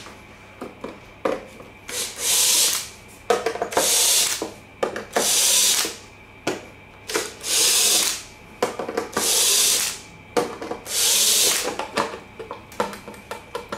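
Cordless drill-driver backing screws out of a small kotatsu's bottom panel: six short whirring runs of about a second each, with small clicks and knocks between them.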